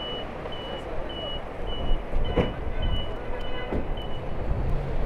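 A vehicle's reversing alarm beeping: short high beeps, a little under two a second, stopping about four seconds in, over a background of traffic and crowd noise.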